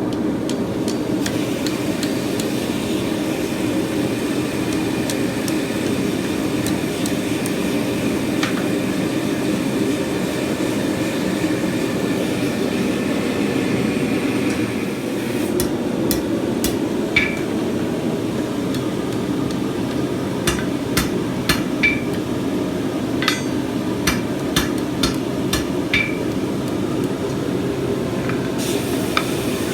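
A steady low roar of a forge running throughout. From about halfway in, a hammer strikes steel on an anvil in an irregular series of sharp blows, some with a short metallic ring.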